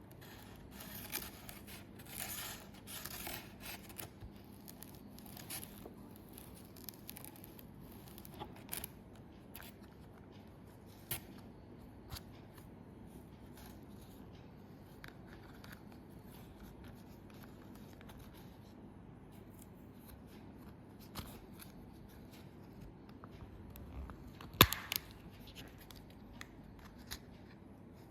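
Candy packaging being handled and opened by hand: crinkling and tearing of wrapper plastic or foil in the first few seconds, then scattered small taps and clicks, and one sharp click near the end.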